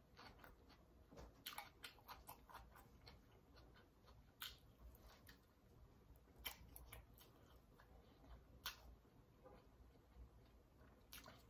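A person chewing jerk chicken: faint, irregular clicks of the mouth and lips, a few louder ones spaced a couple of seconds apart.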